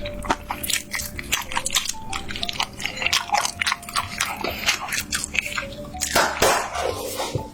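Close-miked biting and chewing of crunchy fried chicken, with many irregular crisp crunches and a louder crunch about six seconds in. Soft background music plays underneath.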